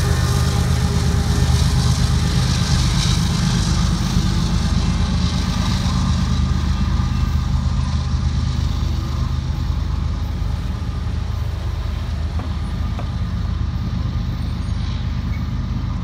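Low, steady rumble of a BNSF freight train's rear diesel locomotive pulling away, slowly fading, mixed with the engines of waiting road traffic.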